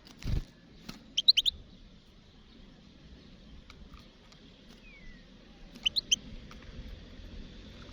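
European goldfinch giving short, high chirping calls: a quick run of three or four about a second in, and another cluster of three about six seconds in. A dull thump at the very start.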